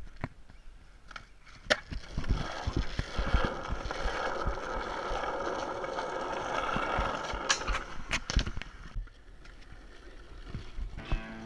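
Skateboard wheels rolling on asphalt for several seconds, a steady rumbling hiss, with sharp clacks of the board near the start and again a few seconds before the end.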